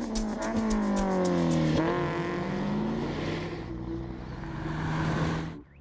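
Car engine running, its pitch falling, rising again, then holding steady before the sound cuts off suddenly near the end.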